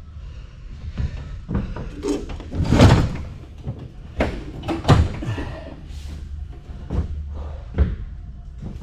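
A string of heavy knocks and clanks, about seven of them at irregular spacing with the loudest about three seconds in, as heavy metal generator parts are moved and set down. A steady low hum runs under the knocks.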